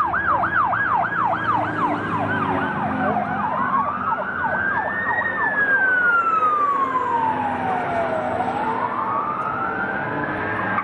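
Fire truck siren passing: a fast yelp of about three cycles a second that switches about three seconds in to a slow wail, rising, falling and rising again. A vehicle engine runs underneath.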